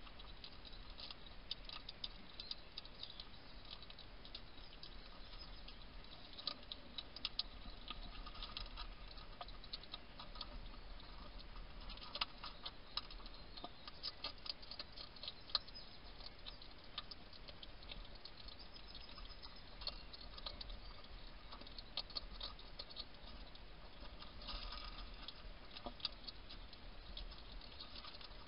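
European hedgehog crunching dry food pellets from a dish: faint, irregular small clicks and crackles of chewing and of pellets shifting, coming in clusters, over a low steady hum.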